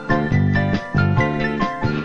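Lively background music with a bouncing rhythm: short chords in the low range repeating about three times a second under a light, high melody.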